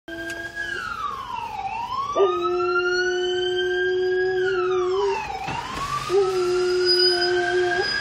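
An emergency vehicle siren wailing, sliding slowly down and back up in pitch. A Doberman howls along with it in long held notes: a short one at the start, then long howls from about two seconds in and again from about six seconds in.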